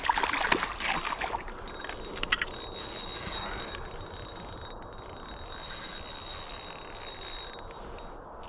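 Northern pike thrashing and splashing in a slushy ice-fishing hole as it is pulled out. It is followed by a few sharp clicks and then a steady high-pitched whine lasting about six seconds that cuts off suddenly.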